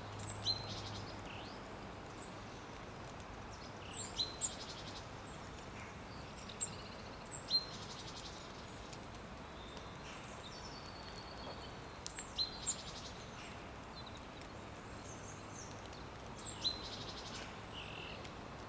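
A small songbird repeating a short song phrase of sharp high chirps and a quick trill, about every four seconds, over a faint steady outdoor hiss.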